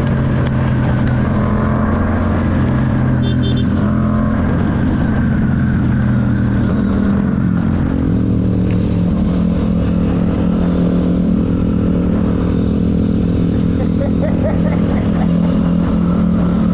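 Yamaha MT-07's parallel-twin engine running under way on the road. The engine note shifts in pitch about 3.5 and 8 seconds in, then holds steady.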